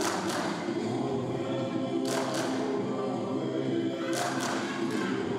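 A group of voices singing together in chorus. Sharp percussive hits come in close pairs about every two seconds, on the beat of the song.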